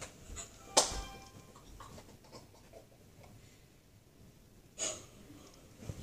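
A person panting and breathing hard, in a few short breaths. A short sharp noise about a second in is the loudest sound.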